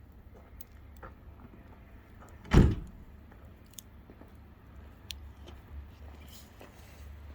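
Wood fire giving off scattered small crackles and pops, with one loud, short thud about two and a half seconds in.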